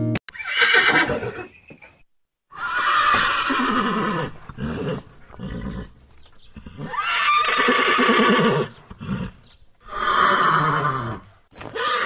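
Horse neighing: a series of about four loud whinnies, each a second or two long and falling in pitch as it trails off, separated by short pauses, with another starting near the end.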